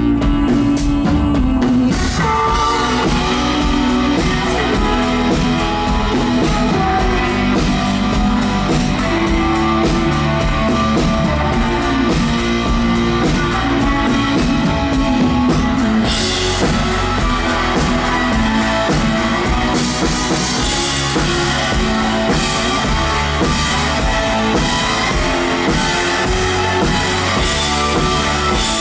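Live rock band playing loudly in a club, drum kit and guitar to the fore. The cymbals come in about two seconds in, and the sound grows fuller and brighter about halfway through.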